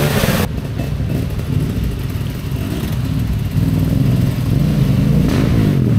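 Off-road motorcycle engines revving up and down as the bikes push through a river crossing. A loud rush of splashing water cuts off abruptly about half a second in, and the engines grow louder from about three and a half seconds.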